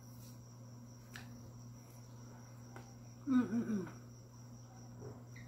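A faint, steady high-pitched trill of crickets over a low hum. About three seconds in there is a short wavering vocal sound.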